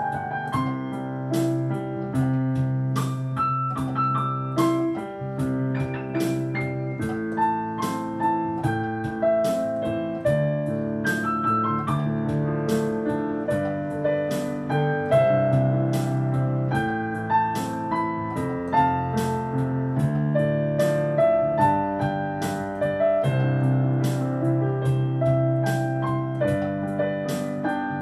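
Piano-voiced keyboard playing a slow melody over chords and a bass line, with a steady beat of light ticks from a rhythm accompaniment.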